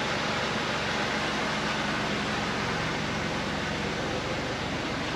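Buick 3.8-litre V6 engine idling steadily, a low, even run with a hiss over it.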